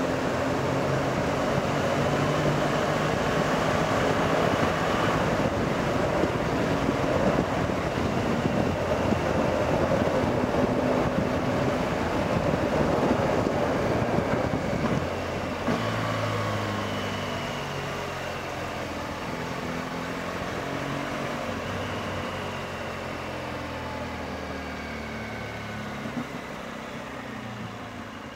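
BMW R1200GS Adventure's boxer-twin engine running under heavy wind noise. About halfway through the wind eases and the level falls, and the engine note settles lower and stands out more clearly.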